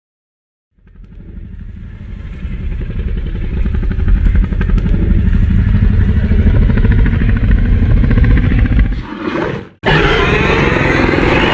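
Indominus rex creature sound effect: a long, low, rattling growl that swells over the first few seconds, holds for several seconds and fades, followed near the end by the start of a louder roar.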